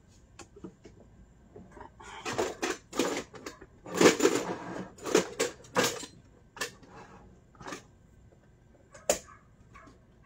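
Kitchen things being handled: a run of knocks and clatters for several seconds, then quieter, with one sharp click near the end.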